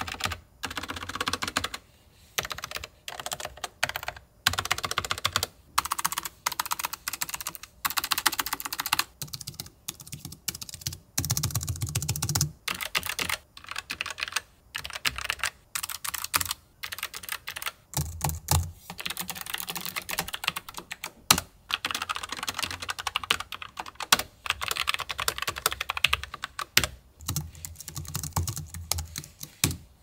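Fast typing on low-profile mechanical keyboards, taken in turn: the Logitech MX Mechanical Mini with brown tactile switches, then the Logitech G915 TKL. Dense runs of key clicks come in bursts with short pauses between them, and some stretches carry heavier low thuds of keys bottoming out.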